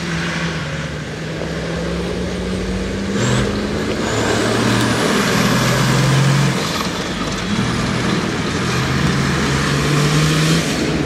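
Off-road competition buggy's engine running hard, its pitch climbing in several stretches, each one broken off before the next begins.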